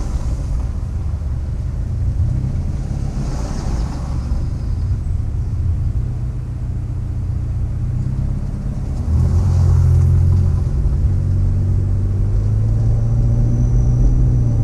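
Motor vehicle engine and road rumble, steady and low, growing louder about nine seconds in.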